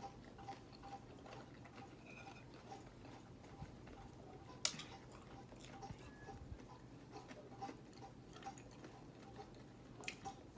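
Faint eating sounds, chewing and small mouth clicks, with two sharper clicks. A soft regular ticking runs underneath at about two ticks a second.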